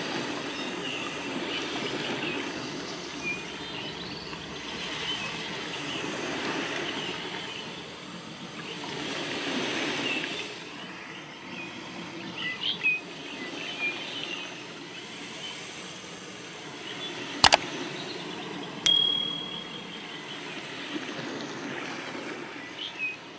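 Steady ambient background noise that swells and fades, with a few short high chirps, a sharp click about 17 seconds in and a short bell-like ding about a second after it.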